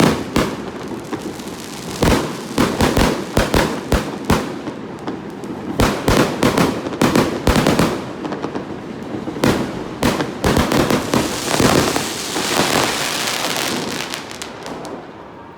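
Fireworks exploding in rapid clusters of sharp bangs with crackling in between, a dense crackling stretch late on, then dying away near the end.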